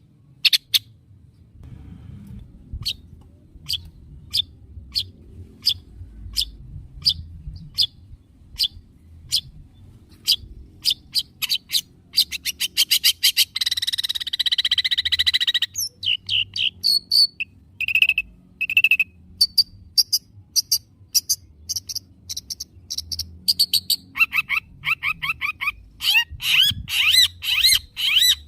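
Long-tailed shrike (cendet) calling: a long run of short, sharp notes about two a second, a harsh rasping buzz for about two seconds midway, then quicker twittering phrases near the end.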